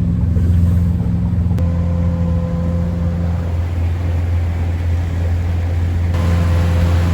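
A small fishing boat's engine running steadily at speed, a constant low drone with rushing noise over it. The higher sound changes abruptly about one and a half seconds in and again near the end.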